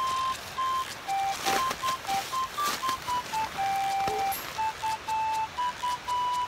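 Background music: a simple tune of pure electronic beeping notes, several a second, with a couple of faint rustles underneath.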